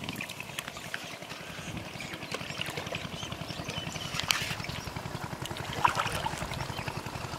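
Water sloshing and splashing as hands grope through shallow, muddy water, with a few sharp clicks.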